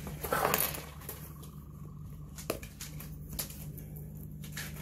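Light handling noises: a brief rustle as an arm reaches out, then a few scattered soft clicks and taps as a plastic pepper grinder is picked up and handled, over a steady low hum.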